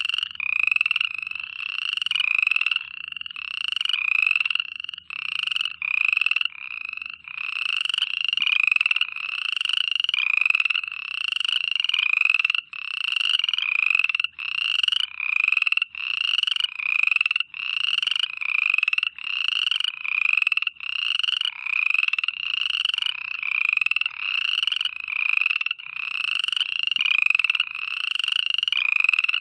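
Frogs croaking at night in a steady chorus, the calls repeating regularly a little more than once a second.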